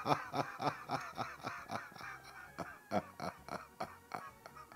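A man laughing hard in a rapid, even run of breathy pulses, about six a second, dying down gradually toward the end.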